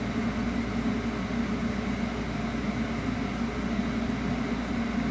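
Steady mechanical hum with air noise, unchanging throughout and with no separate knocks or clicks.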